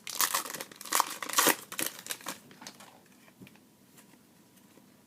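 Wrapper of a trading-card pack crinkling and tearing open, a dense crackle for about two and a half seconds, then only a few faint ticks.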